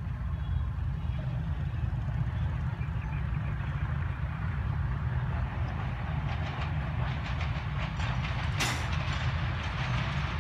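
Pakistan Railways GEU-20 (GE U20C) diesel-electric locomotive approaching with an express train: a steady low engine rumble, with wheel clatter over rail joints building up from about six seconds in and one sharp clank near the end.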